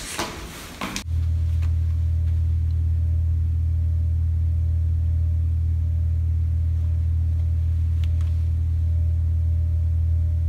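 A loud, steady low drone starts suddenly about a second in and holds unchanged, with a faint higher tone running along with it.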